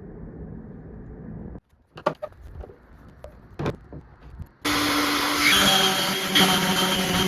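A muffled low rumble that cuts off, then a few scattered knocks and clicks. About four and a half seconds in, a power tool starts loud and runs steadily with a whining motor note.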